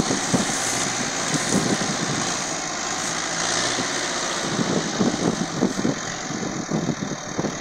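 Farm tractor's diesel engine running under load, hauling a heavily loaded sugarcane trolley. In the second half the sound turns uneven, with irregular low pulses.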